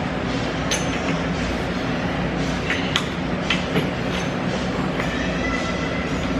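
Steady gym background noise with a low hum, broken by several light clicks and clinks as a lifter settles onto a bench and grips a loaded barbell. A short, thin, high squeak comes about five seconds in.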